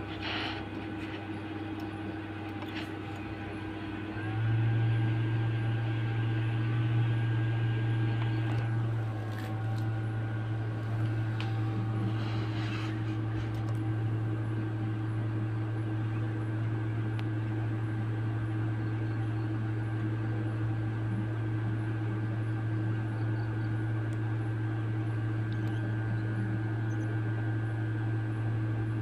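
Hot air rework blower running with a steady low hum, heating the solder of a phone's charging connector to desolder it. The hum grows louder about four seconds in and eases slightly around nine seconds.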